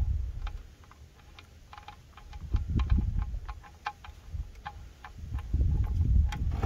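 Light, irregular ticking, a few clicks a second, as a steel oil drain plug is spun out of a 1997 Toyota Corolla's oil pan by hand, with a low rumble coming and going underneath.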